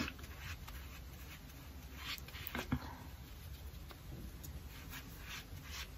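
Faint, scattered soft scratches and taps from a makeup sponge being worked against a pressed powder foundation compact and the skin, over quiet room tone.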